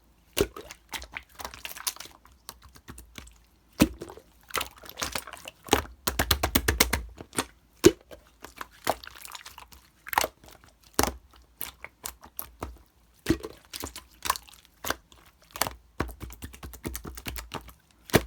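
Slime being squished and pressed by hand, giving irregular sharp clicking pops, with a quick run of crackles about six seconds in.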